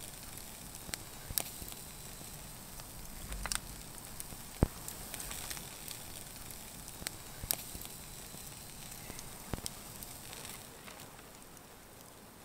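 Wood campfire crackling: a low steady hiss with scattered sharp pops every second or two, the loudest about four and a half seconds in.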